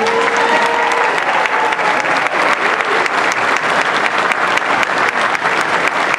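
Audience applauding at the end of a children's song: many hands clapping steadily, with a few voices cheering in the first second or so.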